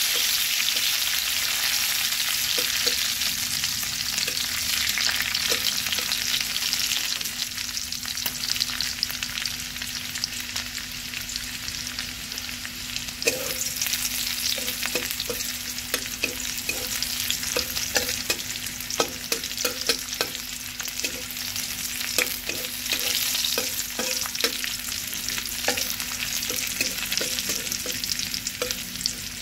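Garlic cloves and green chillies sizzling in hot mustard oil in a kadai, with a metal spatula stirring and scraping them. Its clicks and taps against the pan come more often in the second half.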